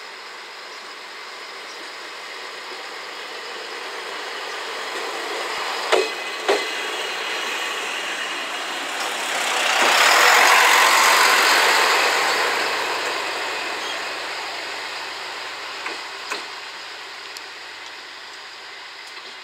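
JR Shikoku 1000 series diesel railcar pulling away at low speed and running close past, its engine and running noise swelling to a peak about ten seconds in and then fading as it moves off. Two sharp wheel clacks half a second apart come about six seconds in, and a quieter pair about sixteen seconds in.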